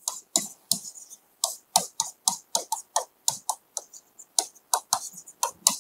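Stylus tip clicking and tapping against the glass of an interactive display board while equations are written: a quick, irregular run of sharp clicks, about three or four a second.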